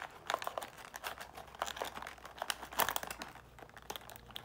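Plastic blister packaging crinkling and crackling in irregular small clicks as a knife blade slices under it to cut it free of the cardboard backing card.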